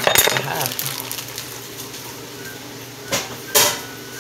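Dishes and utensils clattering: a quick run of clinks and knocks at the start, then two sharp knocks about three and three-and-a-half seconds in.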